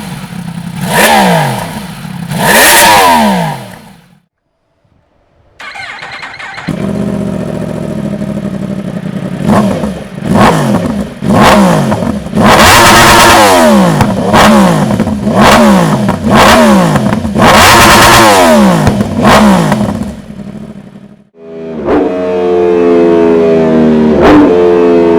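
Yamaha YZF-R1's crossplane inline-four revved hard through its exhaust in a string of sharp throttle blips, each dropping back toward idle. There is a brief silence partway through. Near the end the engine pitch climbs steadily in a long pull.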